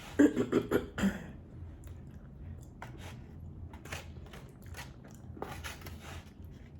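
A short pitched vocal outburst in the first second, then soft chewing and mouth sounds with scattered faint clicks while food is eaten.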